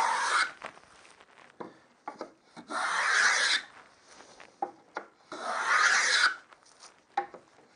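Wooden rebate plane taking shavings along a wooden frame rail: rasping strokes of about a second each, roughly every two and a half seconds, with light knocks between them as the plane is lifted and set back down.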